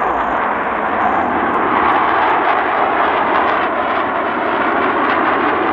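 Military jet fighters flying overhead: a loud, steady jet engine noise with no letup.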